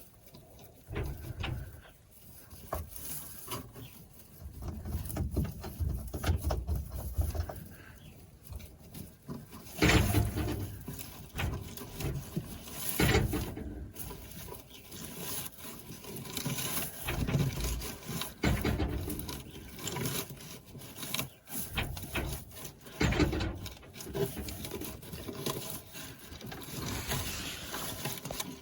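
Irregular knocking, scraping and rustling of things being moved about, with a few louder thumps.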